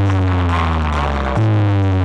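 Electronic music played loud over a DJ sound system: long, heavy bass notes, each sagging slightly in pitch, with a new one starting about a second and a half in.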